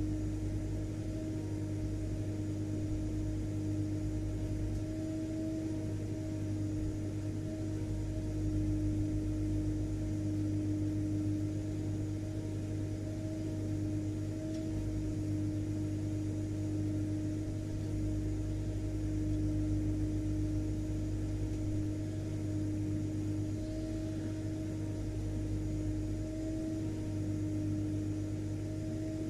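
Vacuum cleaner motor running steadily, a constant hum with a steady whine over a deep rumble, used as continuous white noise.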